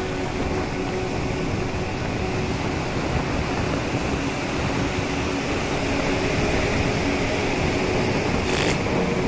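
Steady rush of sea surf breaking on the beach, with a low steady hum underneath.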